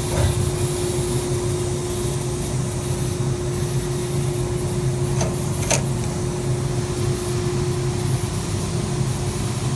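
Spacer bender machine running with a steady hum and a constant tone, with two short clicks about five seconds in, half a second apart.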